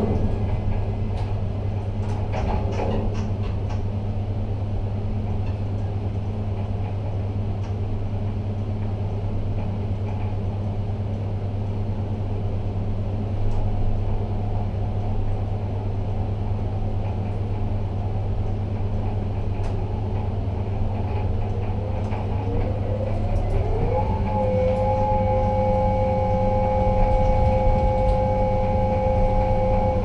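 Steady low machinery hum in a ship-to-shore container gantry crane's operator cab. About three-quarters of the way through, the crane's electric drives start up with a whine that rises in steps to a steady high tone as the trolley carrying the cab travels.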